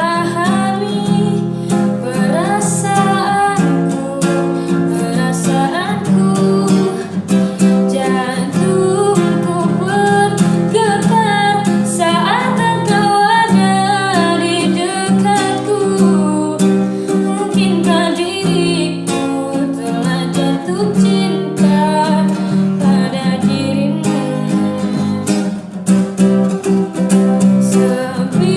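A song: acoustic guitar strumming chords under a singing voice carrying the melody.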